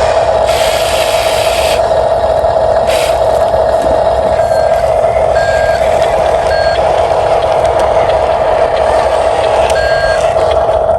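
Radio-controlled toy construction vehicles running, with a steady high whine, a loud hiss near the start, and a few short electronic beeps like reversing beeps partway through.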